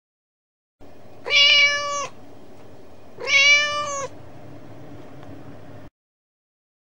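A cat meowing twice, two long, drawn-out meows about two seconds apart, over steady background noise that cuts off suddenly near the end.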